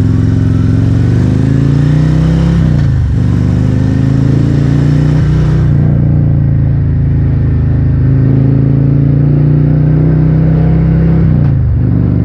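Harley-Davidson Road Glide's V-twin engine under way, climbing in pitch as it accelerates over the first three seconds, dipping at a gear change, then running at a steady pitch with another brief dip near the end.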